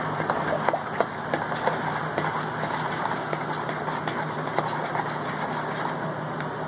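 A spoon stirring a thin water-and-powder slime mixture fast in a plastic mixing bowl, with quick, irregular light clicks and scrapes of the spoon against the bowl. Under it runs a steady background hum.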